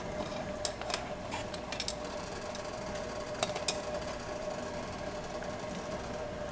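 Stockpot of crab-boil water at a rolling boil, bubbling with a steady hum underneath. Metal tongs click against the crabs and the pot several times in the first few seconds.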